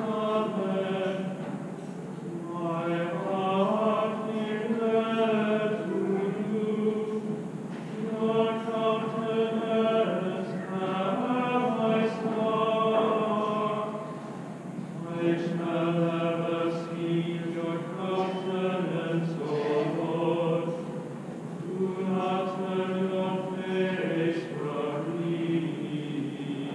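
A men's schola singing liturgical chant without accompaniment, in phrases of several seconds with short breaks between them.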